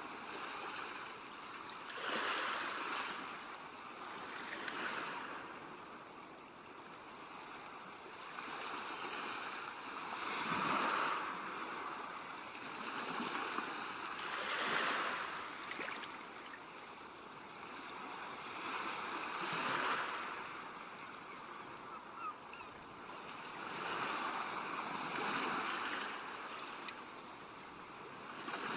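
Ocean waves breaking on a shore, a rushing surf noise that swells and falls with each wave, a crash every few seconds.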